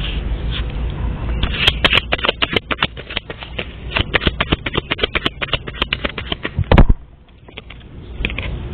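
Tarot cards being shuffled by hand: a rapid run of many crisp clicks lasting about five seconds, then a single heavy thump.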